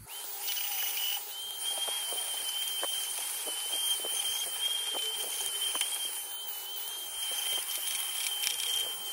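USB-powered mini vacuum cleaner switching on and running: a steady airy hiss with a high whine that steps up slightly about a second in, with scattered faint ticks.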